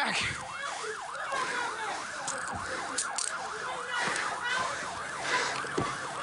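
Police siren on a fast yelp, its pitch sweeping up and down about three times a second without a break.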